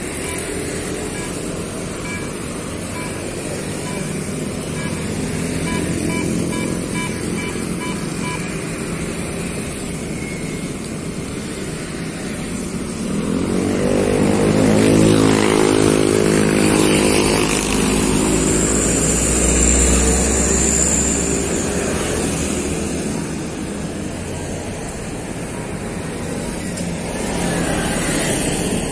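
Road traffic: cars and motorcycles passing in a steady wash of noise. One vehicle engine passes close, growing loud from about halfway through and fading several seconds later.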